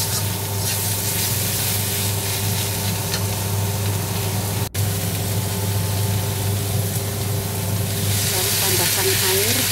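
Bitter melon, wood ear mushrooms and carrot sizzling as they are stir-fried in an iron wok, a metal spatula scraping and turning them, over a steady low hum. The sizzle grows louder near the end.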